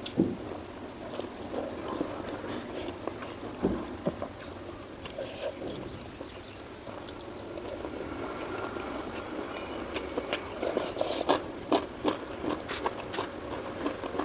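Close-miked eating: chewing and biting food with scattered sharp clicks and mouth smacks, getting busier and a little louder about two-thirds of the way through.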